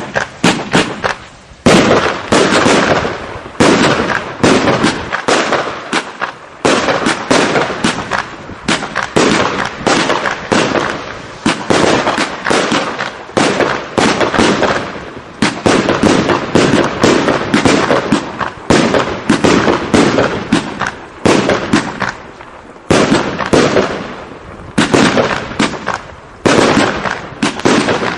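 Jasper Sacramento 2 (JW 086) firework cake firing shot after shot, about one or two a second. Each shot is a sharp bang that trails off before the next.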